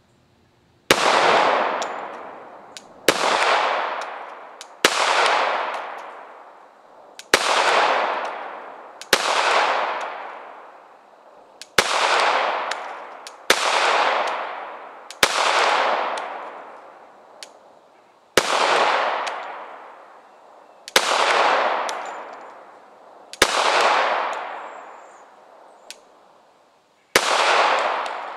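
Glock 21 Gen4 .45 ACP pistol fired in slow, aimed single shots: about a dozen sharp reports, one every two seconds or so, each ringing out and dying away over a second or two.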